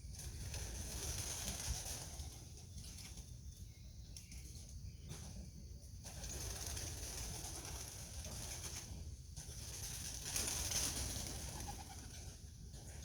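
Pigeons cooing in a loft, over a steady low rumble.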